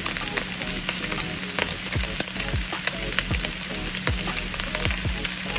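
Ground chicken and chicken bacon sizzling in a frying pan, a steady hiss with frequent crackling pops.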